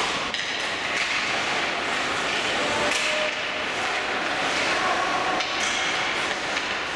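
Ice hockey play on the rink: skate blades scraping the ice and sticks clacking, with a sharp crack right at the start as the puck is played off a faceoff.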